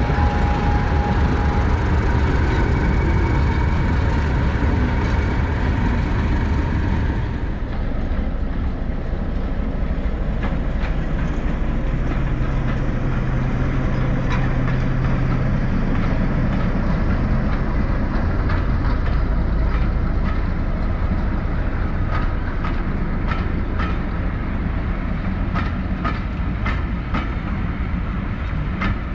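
Diesel train running past: a heavy engine drone with some held tones at first, then the rumble of the carriages with a long run of clicks as the wheels pass over the rail joints.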